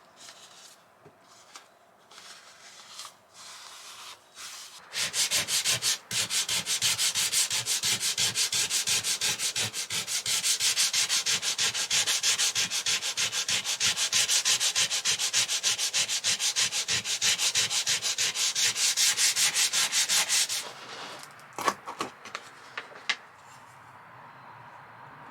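Rapid back-and-forth hand sanding on a surface, starting about five seconds in and stopping suddenly near the end. A few sharp knocks and clicks follow.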